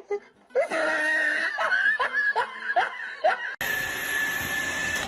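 A person laughing in a run of short, repeated rising bursts. About three and a half seconds in, the laughter cuts off abruptly into a steady hiss carrying a constant high tone.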